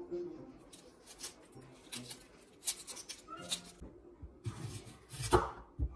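Kitchen knife cutting through a raw onion and knocking on the chopping board: a series of separate crisp cuts, the loudest, with a dull knock, about five seconds in.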